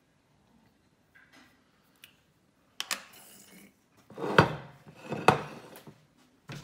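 Kitchen things being handled on a countertop: a light click about three seconds in, then two louder knocks about a second apart with some rustling.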